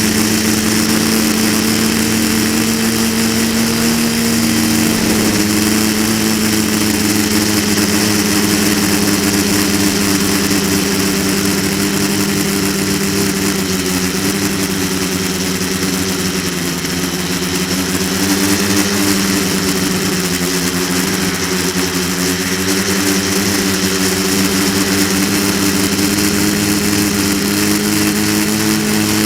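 Quadcopter's electric motors and propellers buzzing steadily in flight, heard close from the onboard camera: several close tones whose pitches waver slightly with throttle, over a constant airy hiss.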